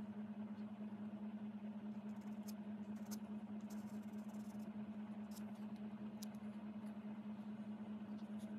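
A steady low hum throughout, with a few faint, brief scratches of a flat-nibbed bamboo calligraphy pen dragging ink across paper in the middle of the stretch.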